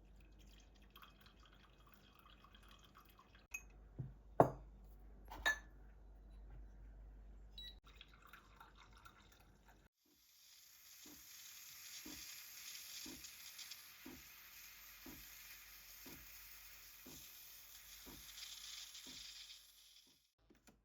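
A few light knocks of household objects. Then a steady hiss of water with regular drips, about two a second, for roughly ten seconds.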